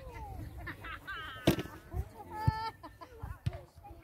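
Distant, high-pitched shouts and calls of young players on a football pitch, with two sharp knocks about a second apart in the middle.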